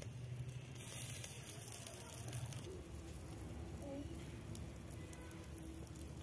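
Egg frying softly in oil in a steel ladle over hot charcoal: a faint, steady sizzle with fine crackling.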